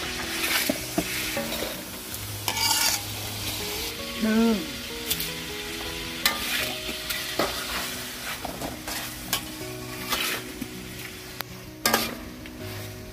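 Noodles, vegetables and pork stir-frying in a hot pan: a steady sizzle, with a spatula scraping and clicking against the pan as the food is tossed.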